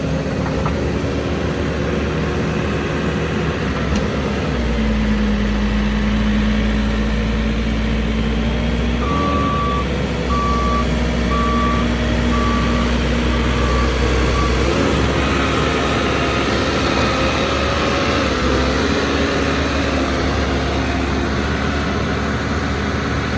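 New Holland LB75B backhoe's diesel engine running steadily; its note drops and deepens about four seconds in and rises again about two-thirds of the way through. Near the middle, the backhoe's reversing alarm sounds a run of evenly spaced single-tone beeps.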